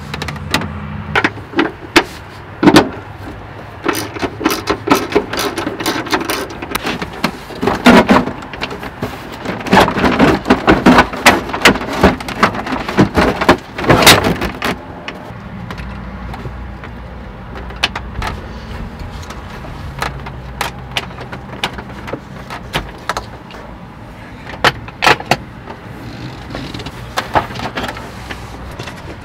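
Plastic dash trim and cup-holder console panel of a Chevy Express van cab being worked loose and lifted out by hand, with many sharp clicks, knocks and rattles. They come thickest in a busy stretch in the middle.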